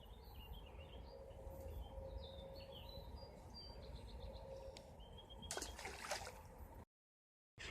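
Faint outdoor ambience: birds chirping in short high notes over a steady low rumble. A couple of brief rustling noises come about six seconds in, and the sound drops out completely for a moment near the end.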